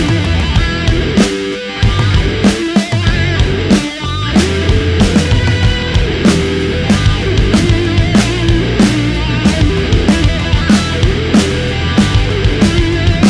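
Loud rock music with a steady drum beat and distorted guitar.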